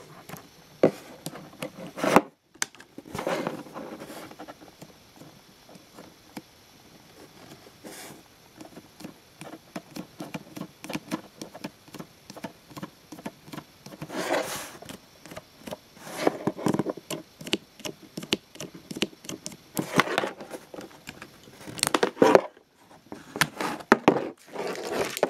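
Handling noise of Lego Power Functions plastic parts: an LED light pair, its cable and the battery box being picked up, moved and set on a tabletop, with scattered clicks, taps and short scrapes.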